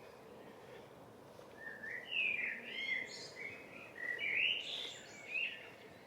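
A songbird singing two warbling phrases, each about a second and a half long, the first starting about a second and a half in and the second about four seconds in.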